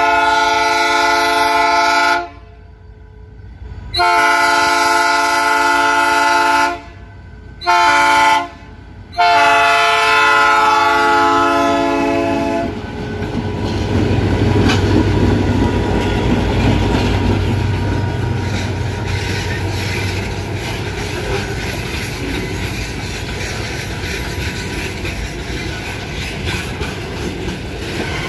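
Diesel freight locomotives sounding a multi-tone air horn in four blasts, long, long, short, long, the standard warning for a level crossing. Then the locomotives pass with a deep engine rumble, followed by the steady rolling and clickety-clack of the hopper wagons over the rails.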